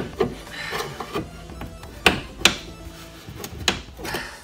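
Metal wiper linkage knocking and scraping against the car body as it is worked loose by hand, with two sharp knocks about two seconds in and another near the end. Music plays in the background.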